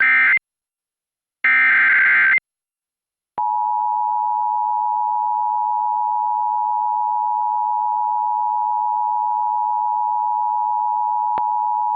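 Emergency Alert System tones: two short bursts of screeching digital SAME data tones, then about three and a half seconds in the EAS attention signal, a steady, harsh two-tone beep held for about nine seconds, announcing a new alert.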